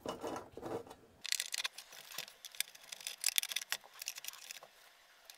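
Quick light clicks, taps and rattles of a scale RC crawler truck's hard plastic body and its 3D-printed parts being handled and turned over by hand. The small clicks start about a second in and keep coming.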